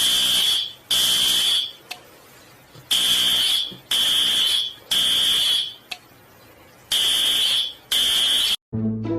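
Smoke alarm sounding in the temporal-three evacuation pattern: loud, high-pitched beeps in groups of three about a second apart, with a pause between groups. It cuts off suddenly near the end, partway through a group.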